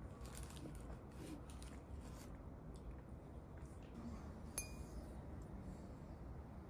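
Metal fork tapping and scraping on a ceramic plate while cutting a slice of pie, then a single sharper clink that rings briefly about four and a half seconds in.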